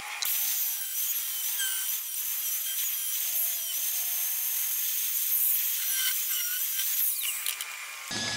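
Power grinder with an abrasive wheel grinding out a weld on sheet-steel body panel, a steady gritty hiss with a thin whine that wavers in pitch as the wheel bites. The weld being removed had not fused to the base metal.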